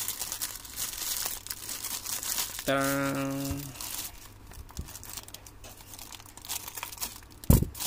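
Black plastic shipping bag and rolled plastic wrap crinkling as they are pulled apart by hand, with scissors cutting through the plastic. A sharp click near the end.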